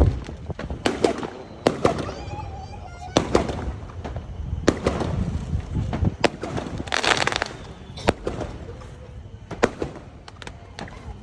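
Fireworks display: aerial shells bursting in sharp bangs every second or two, with a dense rush of crackling about seven seconds in.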